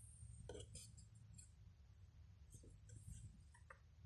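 Near silence with a handful of faint scattered clicks and crackles: a car door speaker popping as an AA battery is touched to its cut wires to test it.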